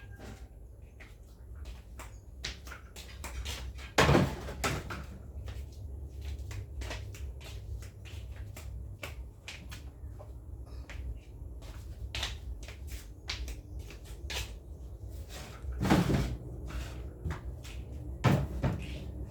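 Kitchen items and containers being handled and set down: a string of small clicks and knocks, with three louder thumps, one about four seconds in, one past the middle and one near the end. A low steady hum runs underneath.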